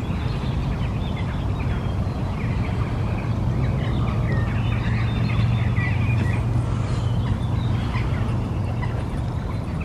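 Birds chirping and calling over a steady low rumble that grows a little louder mid-way.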